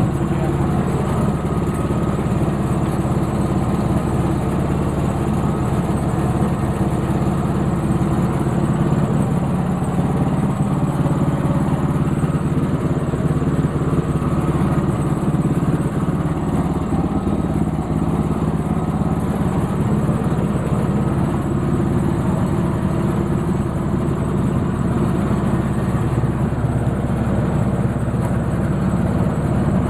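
Sawmill's engine running steadily at an even pitch.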